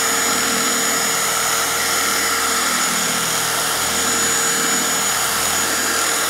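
Dual-action polisher with a black foam finishing pad running steadily at one speed on a painted bumper, a steady high whine over the motor's hum. This is the refining stage, polishing away the haze left by a microfiber cutting pad.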